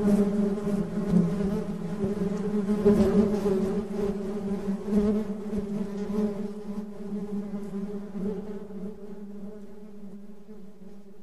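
Honeybees buzzing: a steady, low droning hum of wingbeats that fades gradually.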